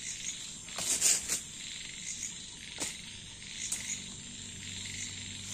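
Steady night chorus of crickets and frogs, with short rustles and clacks from a nylon tent and its poles being handled, the loudest about a second in.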